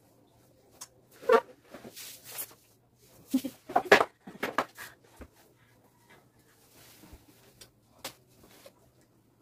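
Clothing rustling as a hoodie is pulled off over the head, with short bursts of laughter about one and four seconds in.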